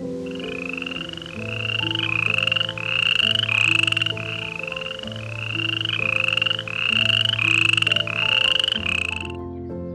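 An animal giving short, rising, rasping calls over and over, about two a second, with light background music underneath.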